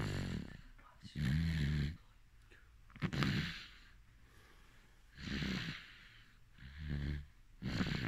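A sleeping baby snoring, about six noisy breaths in eight seconds, each a short low snore with a breathy hiss on top.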